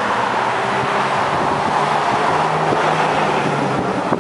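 Steady rushing background noise with a faint, even, engine-like hum underneath.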